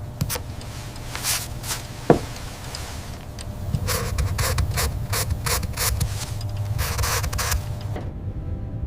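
Irregular scraping and rubbing strokes over a low steady hum, with one sharp knock a little after two seconds in. The strokes come thicker and faster in the second half, then stop shortly before the end.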